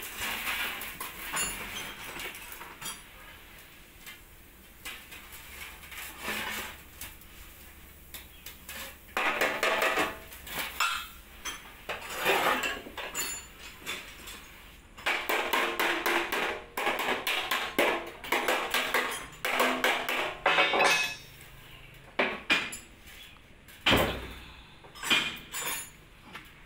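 Dented yellow sheet-metal panel from a Caterpillar 320GC excavator, handled and flexed by hand on a steel plate: irregular clattering and scraping of metal on metal in clusters, with one heavy thud near the end.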